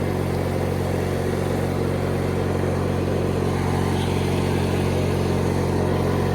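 1997 MTD Yard Machines riding mower's engine running steadily at an even speed.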